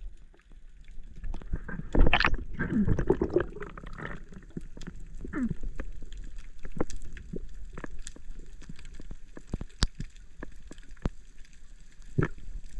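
Water gurgling and sloshing, loudest for a second or so about two seconds in, with scattered sharp clicks throughout.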